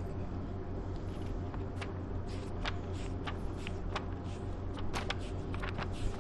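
Soft paper rustles and scattered light clicks of a Quran's pages being turned and handled, over a steady low hum.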